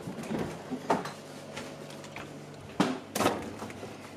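Kitchen handling noises: a few sharp knocks and clunks, the loudest two close together near the end, like doors, cupboards or crockery being moved, over a low steady hum.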